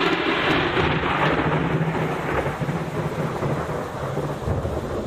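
A clap of thunder: a sudden loud crack that rolls on into a long rumble, slowly easing over several seconds.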